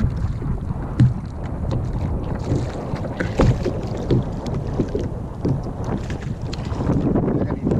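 Wind buffeting the microphone and water slapping and sloshing against a plastic sit-on-top kayak's hull on a choppy sea. Irregular sharp knocks come through, the loudest about a second in and again near the middle.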